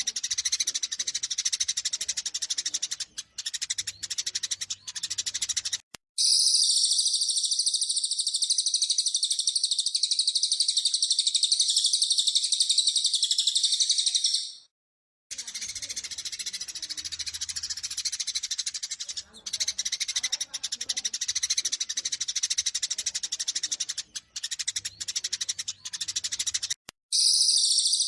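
Eurasian tree sparrows in a rapid, agitated fighting chatter of short chirps. This alternates with long stretches of dense, unbroken high-pitched trilling song from another songbird: one about six seconds in lasting some eight seconds, and another starting near the end.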